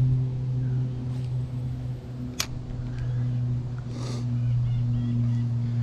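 A steady, low engine drone holding one pitch throughout, with a single sharp click about two and a half seconds in.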